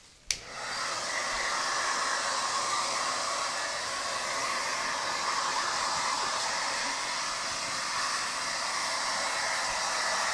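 Handheld hair dryer switched on with a click just after the start, then blowing steadily.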